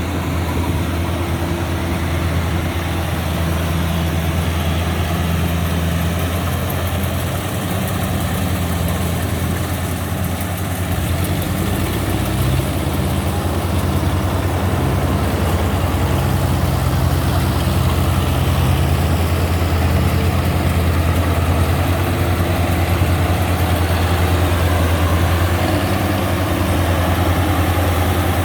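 Diesel engine of a rice combine harvester running steadily in a field, a loud low hum that holds through, with a slight change in pitch about halfway.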